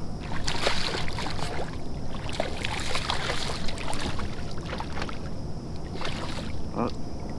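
Hooked redfish thrashing and splashing at the surface beside a kayak, in several irregular bursts, over a steady low wind rumble.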